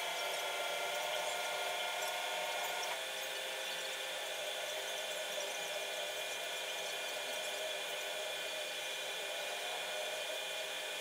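A steady machine whine over a hiss, like a small motor running. A few of its tones drop out about three seconds in, and it carries on slightly quieter.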